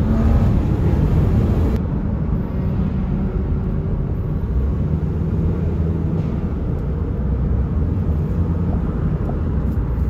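Steady low rumble of cars rolling slowly in a line, heard from inside a following car. Right at the start the tail of an engine revving up fades out, and faint engine notes come and go under the rumble.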